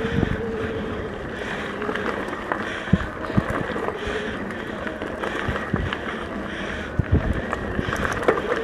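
Mountain bike rolling along a dirt trail: steady tyre and riding noise with many scattered knocks and rattles from bumps, and wind buffeting the microphone.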